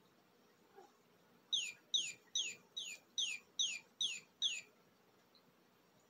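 Electronic chirping from a plush cat-toy bird: eight identical short chirps, each falling in pitch, repeated evenly about two and a half times a second. They begin about a second and a half in and stop after about three seconds.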